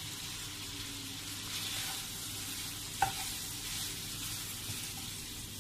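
Bacon frying in oil in a pan, sizzling steadily as it starts to brown, with a single knock about three seconds in.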